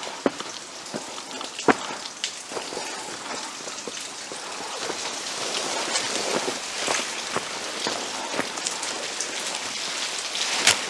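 Steady rain falling, an even hiss with scattered sharp clicks of drops, one louder click near the end.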